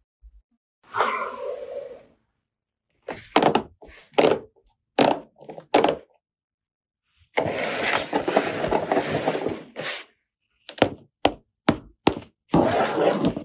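Plastic toy kitchen parts being handled, with a string of sharp knocks and clicks and a few longer scraping stretches, the longest about seven seconds in.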